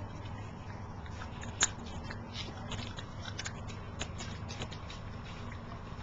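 Corgi puppies chewing treats and nosing over newspaper: a run of small irregular crunches, clicks and paper crinkles, with one sharper click about one and a half seconds in.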